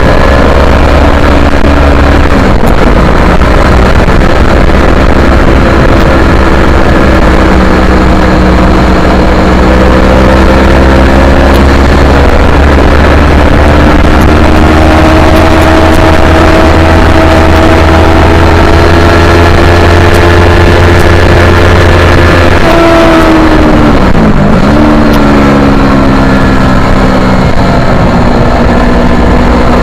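Yamaha R3's 321 cc parallel-twin engine running hard on track. Its pitch climbs slowly for several seconds, then drops sharply for a moment about three quarters of the way through before rising again.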